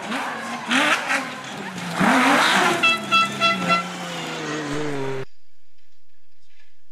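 Rally car engine revving hard as it passes, its pitch then falling away. A horn sounds four short blasts in quick succession about three seconds in. The sound cuts off abruptly about five seconds in.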